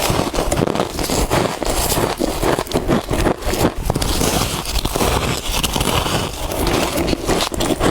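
Close-up crunching of soft freezer frost being bitten and chewed: a dense, unbroken run of crisp crackles and crunches.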